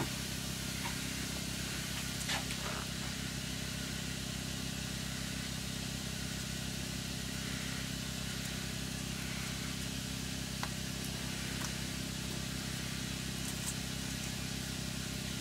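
Steady low hum of shop machinery left running after sandblasting, with a few faint clicks.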